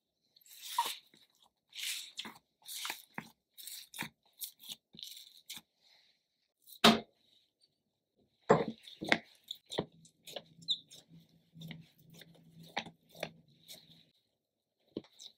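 Hands working soft proofed bread dough: sticky tearing and crackling as it is pulled and degassed, a loud thump about seven seconds in, then further soft thumps and a low steady hum as it is pressed flat on a silicone mat.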